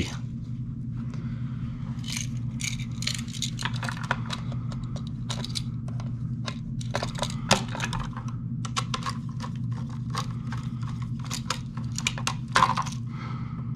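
Irregular small metallic clicks, taps and scrapes of a screwdriver working the terminal screws of an electrical outlet receptacle and its wires as they are fastened, over a steady low hum.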